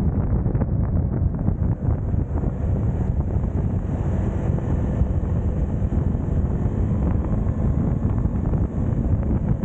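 Wind buffeting the microphone of a camera on a moving motorcycle, with the bike's engine running underneath, steady throughout.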